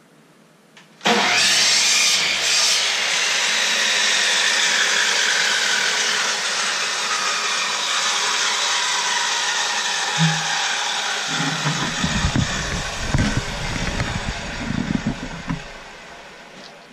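A loud workshop power-tool motor switches on abruptly about a second in and runs steadily. Low knocks and thumps of wood being handled come in its second half, and the motor fades out near the end.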